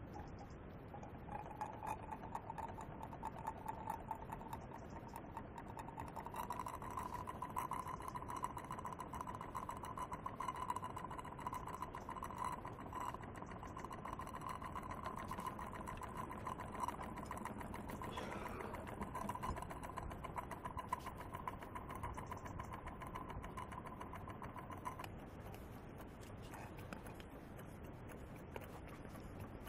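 Small model live steam engine fired from a copper vertical boiler, running steadily and spinning a wooden propeller, with a steady high tone through most of it that stops near the end.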